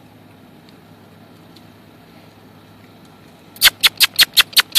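A person clucking to urge a longed horse on: a quick run of sharp tongue clicks, about five a second, starting a little past halfway, over a faint steady background noise.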